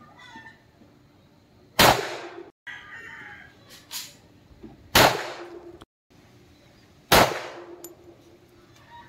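Three semi-automatic pistol shots, about two, five and seven seconds in, each cracking sharply and then dying away; the last two are followed by a brief metallic ring, as of a steel target plate being hit.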